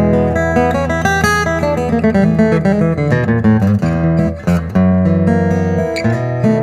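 Recording King acoustic guitar played through its newly installed K&K Pure Mini pickup and an amp: a run of quickly picked notes over ringing bass notes.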